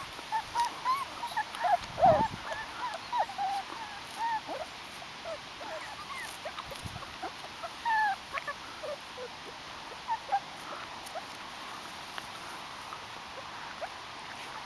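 Five-week-old White Swiss Shepherd puppies whimpering and yipping in short high squeaks while playing. The squeaks come thick in the first few seconds, loudest about two seconds in, and thin out to scattered ones later.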